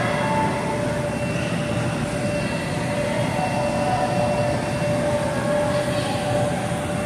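Steady, loud noise of electric blower fans running to keep inflatable bounce houses inflated, with a faint steady hum.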